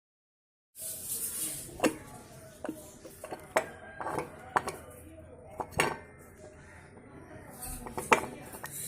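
Sharp metal clinks and taps starting about a second in, about half a dozen at uneven intervals with the loudest near the end: a 5 mm Allen key and steel bolts knocking against the rocker cover of a Royal Enfield Standard 500 engine as its four cover bolts are undone.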